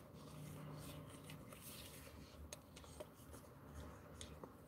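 Faint rustling and rubbing as a set of makeup brushes is handled in its clear plastic sleeve, with a few soft ticks of the brush handles knocking together.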